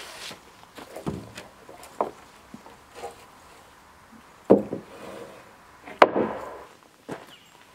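Rough-sawn lumber boards knocking against each other as they are laid down and shifted on a stack: a few light wooden knocks, then two loud hollow clunks about four and a half and six seconds in.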